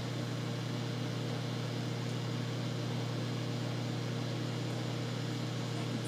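Sanyo microwave oven running on a heating cycle, with a steady, unchanging low hum.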